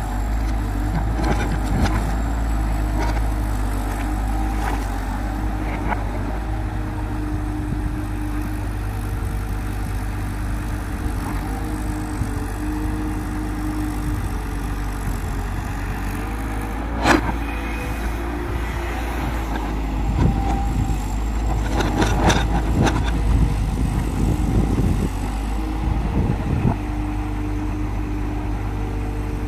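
Tata Hitachi EX200 tracked excavator's diesel engine running steadily under load as the arm swings and digs. A sharp knock comes a little past halfway, followed later by a run of knocks and scrapes from the bucket working the soil.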